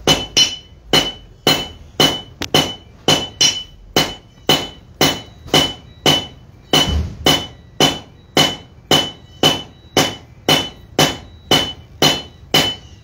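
Blacksmith's hand hammer striking a hot iron bar over the horn of an anvil in a steady rhythm of about two blows a second, each blow ringing. The bar is being drawn out to a point.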